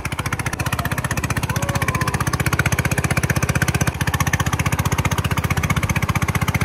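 Motorboat engine running steadily at cruising speed, a rapid, even putter, as the boat is under way.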